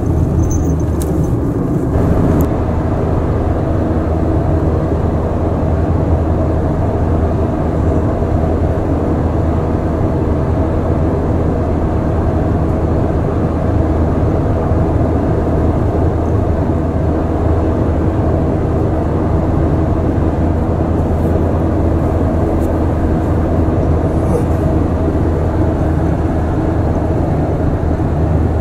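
Steady road and engine noise inside a moving car's cabin, a low, even drone.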